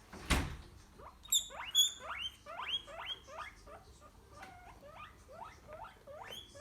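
Guinea pig wheeking: a run of short whistling squeals, each rising sharply in pitch, about two a second. It is the begging call a guinea pig makes when the refrigerator opens. Just before the calls start there is a single thump as the fridge door is opened.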